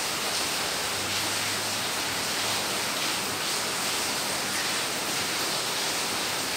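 Steady hiss of background noise with a faint low hum beneath it, and no distinct sounds standing out.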